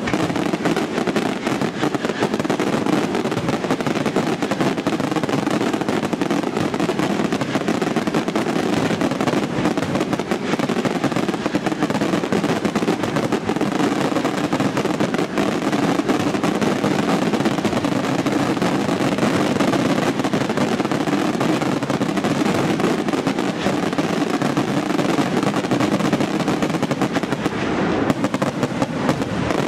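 Aerial fireworks display in a dense, rapid-fire barrage: shell bursts and crackles follow so closely that they run together into one continuous loud rattle of explosions.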